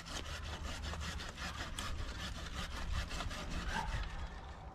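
Hand pruning saw cutting through a tree branch in quick, even back-and-forth strokes that stop shortly before the end.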